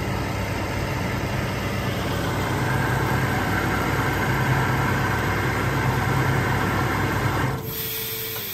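Atlas Copco SCROLL Star 3.7 kW oil-free scroll compressor running steadily under load with a low hum as it refills its receiver. It cuts out abruptly near the end on reaching its 8.5-bar cut-off pressure, leaving a high hiss.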